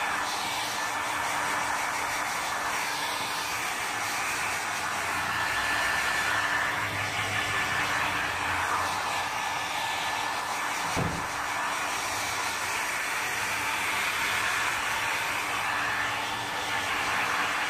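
Handheld blow dryer running steadily, a rushing hiss of air over a low motor hum, with one brief thump about eleven seconds in.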